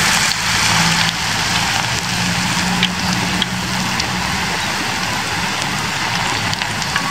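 Hot oil sizzling hard around a battered leaf in a small pot of deep oil, with a few sharp pops of spitting oil.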